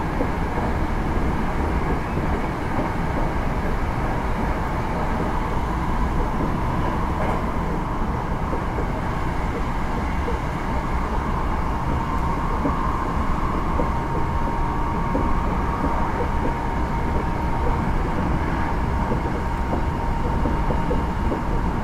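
Hankyu 9000 series electric train running steadily at speed, heard from inside the car: an even wheel-on-rail and running noise. A faint steady whine comes up in the second half.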